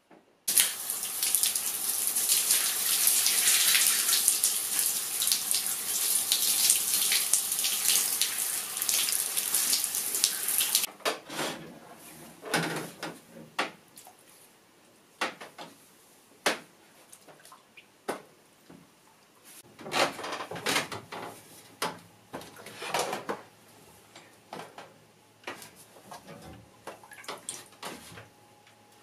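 Water running steadily for about ten seconds, then stopping. After that come a series of short, separate splashes and sloshes of feet moving in a foot-bath tub of water.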